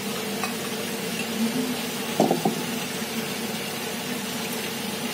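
Potatoes frying in lard sizzling steadily in a pan, under the steady hum of a kitchen range hood.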